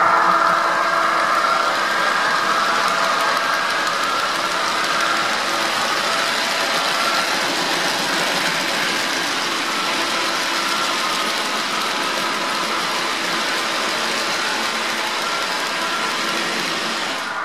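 Model freight cars rolling past on track: a steady rolling rattle of metal wheels on rail, with the fading electric hum of the model electric locomotives' sound decoder under it.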